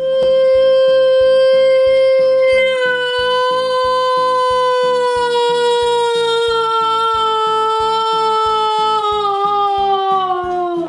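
One long held note that starts and cuts off abruptly and slowly sinks in pitch over about ten seconds, played over background music with a steady plucked beat.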